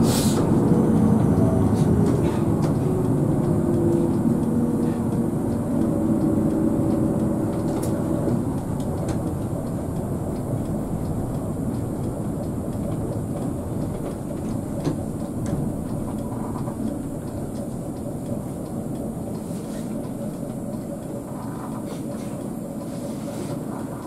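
Steady rumble of a Hino RK8 coach's diesel engine and tyres on the road, growing gradually quieter.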